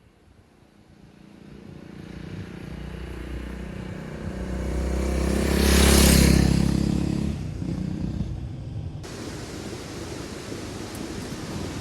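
A motorcycle approaching and passing by, its engine loudest about six seconds in, then fading. About nine seconds in, the sound cuts abruptly to steady engine and road noise.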